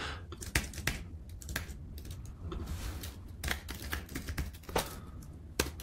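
Typing on a computer keyboard: irregular key clicks, a few a second, over a faint low hum.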